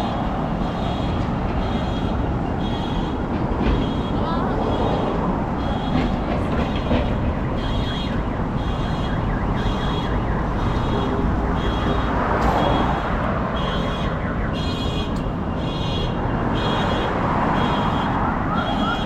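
Steady road and wind noise of a moving vehicle, with a short high-pitched beep repeating at a regular pace, about once or twice a second.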